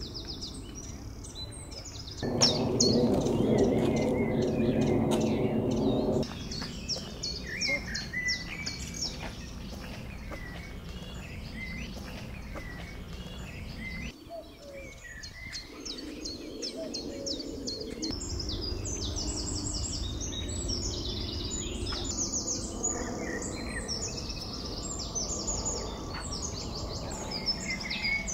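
Small songbirds chirping and singing in repeated short, high phrases. About two seconds in, a louder steady low hum starts and cuts off suddenly some four seconds later; a fainter low hum returns in the second half.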